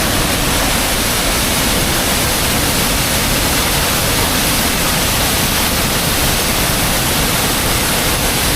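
Waterfall: a steady, loud rush of falling water with no breaks or changes.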